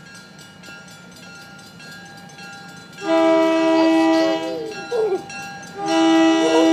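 Diesel locomotive's air horn sounding two long blasts of a multi-note chord, the first about three seconds in and the second near the end, the warning for the grade crossing it is approaching. Before the horn, a faint, regular ringing of the crossing bell.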